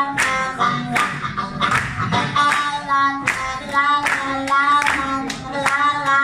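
Blues harmonica played with cupped hands close to the microphone, bending notes over a live band. Sharp hits keep the beat about twice a second.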